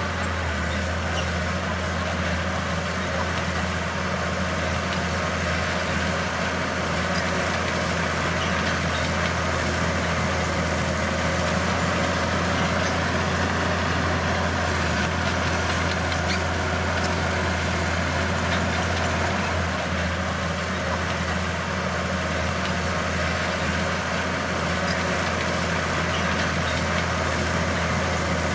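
Bulldozer's diesel engine running steadily, with a constant low drone that holds the same pitch and loudness throughout.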